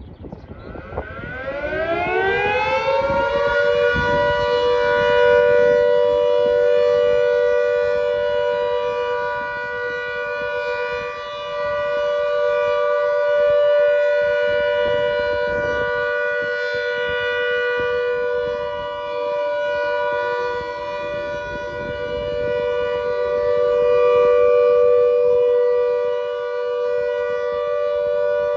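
Klaxon GP8 siren starting up, its pitch rising over the first few seconds, then holding a steady, loud continuous tone: the Alert signal.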